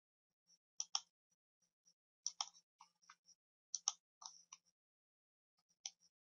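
Computer mouse buttons clicking quietly a handful of times, several as quick double-clicks.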